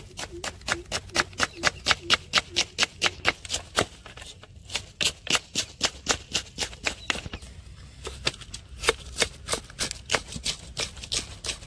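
Kitchen knife chopping red onion and green capsicum on a wooden cutting board: quick, even knocks of the blade on the board, about four a second, with a couple of short pauses.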